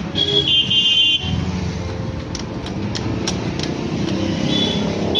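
Street traffic with motor vehicle engines running, a short high-pitched tone in the first second, and a few light clicks as a spanner tightens the number-plate bolts on a motorcycle.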